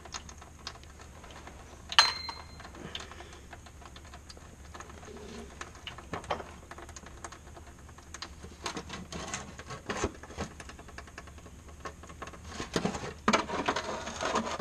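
Scattered clicks and taps of hand tools and small metal parts being handled, with a sharp metallic clink that rings briefly about two seconds in and a quicker run of clicks near the end.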